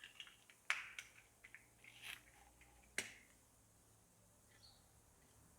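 Faint light clicks and taps of small plastic parts being handled and fitted together, a printed sensor part with a PTFE tube going into its mount. The sharpest click comes about three seconds in, then it falls almost silent.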